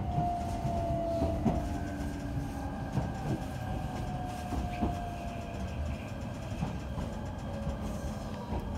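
Running sound inside an E129 series electric train with a Toyo IGBT-VVVF inverter: the inverter and traction motor whine slowly falls in pitch as the train slows for a station stop, over steady rolling noise with sharp knocks of the wheels passing rail joints.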